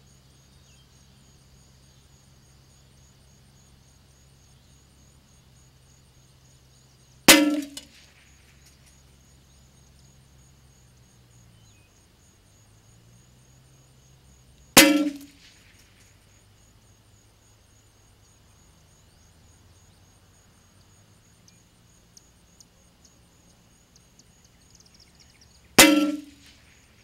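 Three single shots from a Savage Mark II FVSR bolt-action .22 LR rifle, each a sharp report with a brief ring-out. The first comes about seven seconds in, the second about seven and a half seconds later, and the third about eleven seconds after that.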